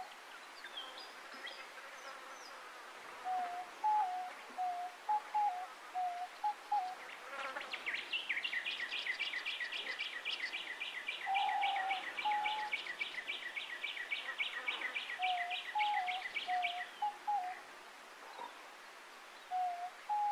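Diamond doves cooing in short phrases of stepped notes, repeated every few seconds. Through the middle runs a long, fast trill of high notes at about five a second, which stops a few seconds before the end.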